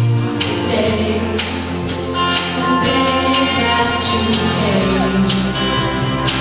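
Live band playing a song with electric and acoustic guitars, keyboard and a drum kit keeping a steady beat, with voices singing.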